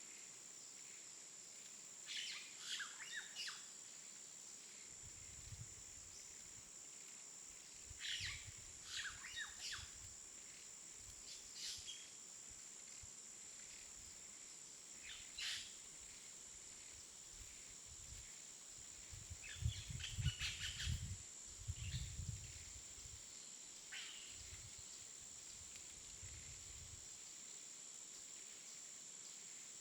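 Jungle ambience: a steady, high insect drone with birds calling in short bursts of chirps every few seconds, the busiest flurry about twenty seconds in. A low rumble comes and goes underneath for much of the time.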